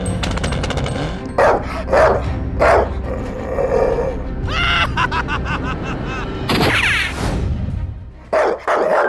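Background music mixed with a string of short cartoon sound effects: several sharp hits, a quick pitch sweep near the middle, and a bright whooshing burst a little later.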